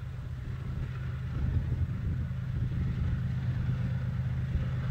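TE33AC diesel-electric locomotive approaching, its engine a steady low drone that grows louder.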